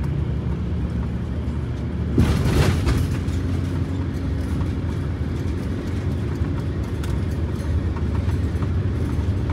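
Steady engine and road noise inside the cab of a Blue Bird Wanderlodge motorhome cruising on the highway, with a brief louder burst of noise about two seconds in.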